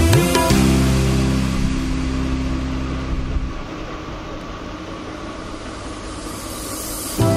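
The background music thins to an even, hiss-like noise wash with a low held drone, which stops about halfway through. The wash swells slightly, then the music with its plucked-string melody comes back right at the end.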